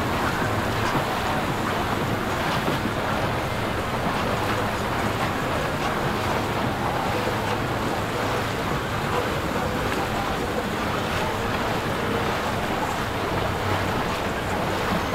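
Steady rush of water and wind noise on the microphone, with boat motors running underneath as a low, even hum.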